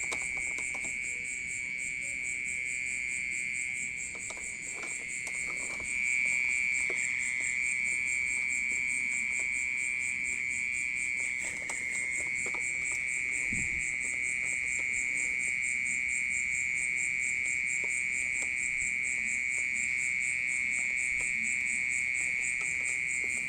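A hidden insect, cricket-like, singing a loud, unbroken, high-pitched ringing trill that holds steady at one pitch. A few faint handling knocks sound underneath.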